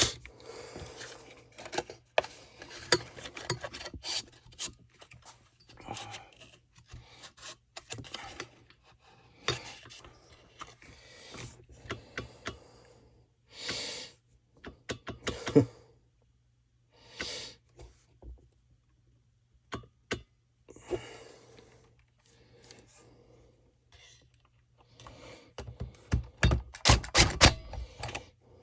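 Hand work on a small trimmer engine: on-and-off rubbing and scraping with scattered clicks and taps of parts and tools being handled, broken by short quiet gaps, and a quick run of clicks near the end.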